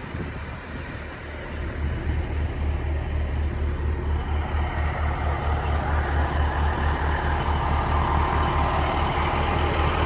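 Semi truck's diesel engine idling with a steady low throb, growing louder about a second and a half in.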